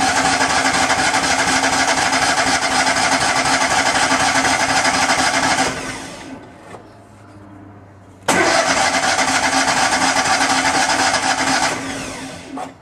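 The electric starter on a Miller Bobcat 250 welder-generator's gasoline engine cranks it in two long bursts of about six and four seconds, with a pause between. The engine does not catch on a cold start after months of sitting, and the engine is becoming flooded.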